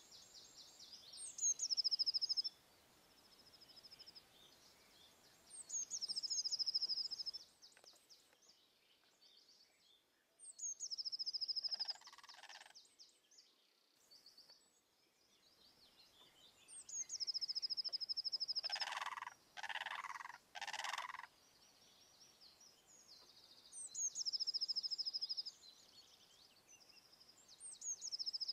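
A small songbird repeatedly sings a short, high phrase, a few sharp notes running into a fast trill, every four to six seconds. Partway through, a lower, harsh call sounds once, then three times in quick succession.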